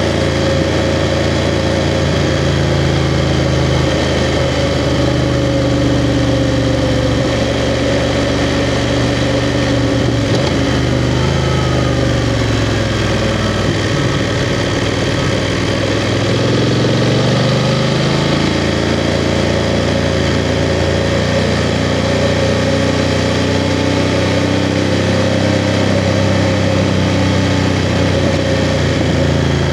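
BMW F 750 GS parallel-twin motorcycle engine running while being ridden. Its revs drop about a third of the way in as the rider slows, then climb again just past the middle as he accelerates, and hold steady for the rest.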